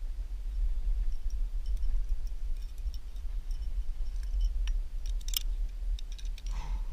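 Small clicks, scrapes and light clinks of a lead climber's hands and gear on the rock face, sharpest a little past five seconds in, over a steady low rumble.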